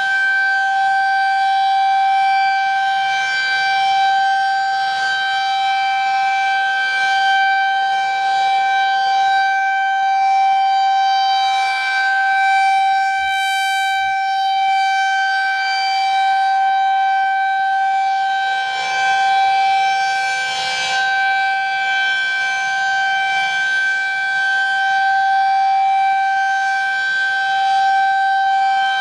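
Federal Signal 2001-SRN rotating electromechanical warning siren sounding a steady tone for its monthly test. It holds one pitch throughout, and its loudness rises and falls gently.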